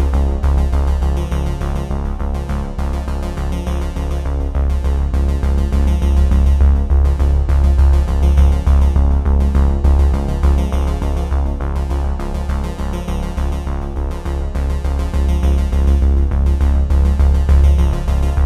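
Background music: an electronic synthesizer track with a heavy bass line and a steady beat.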